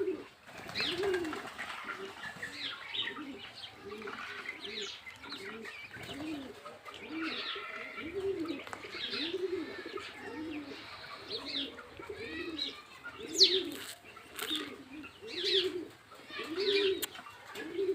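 Birds cooing over and over, a low 'ooh' repeated one or two times a second without a break, with smaller birds chirping higher over it.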